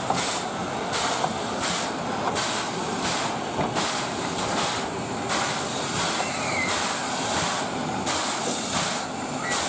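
Thomas-liveried C11-class steam tank locomotive chuffing slowly as it moves at walking pace, with steady exhaust beats of hissing steam about every 0.7 seconds.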